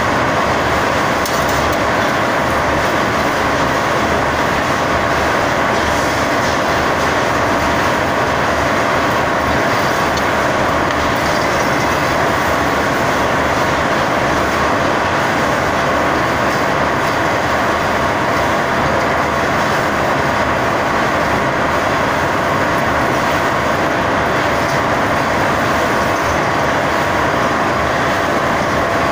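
Wire-drawing machinery running: a loud, steady industrial noise with a constant whine that does not change.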